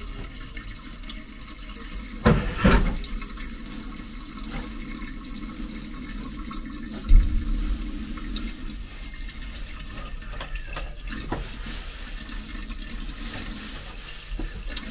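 Water still running out of a leaking pipe fitting after the supply has been shut off, the leftover water in the line draining away in a steady stream. Two short knocks come a little over two seconds in, and a heavier thump about seven seconds in.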